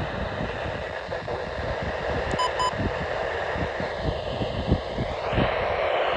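Wind buffeting the microphone, with irregular low thumps over a steady hiss. Two short electronic beeps sound about two and a half seconds in, and a broader rushing noise swells near the end.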